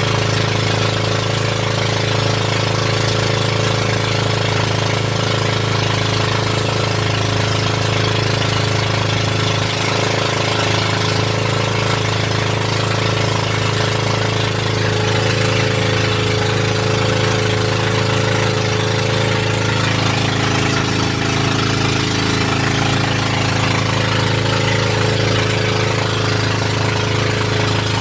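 Boat engine running steadily at constant speed, a loud unbroken low hum.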